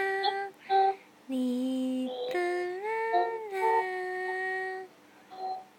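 A high voice singing a slow tune in long held notes that slide from one pitch to the next, with short breaks between phrases, like a lullaby; it stops a little before five seconds in.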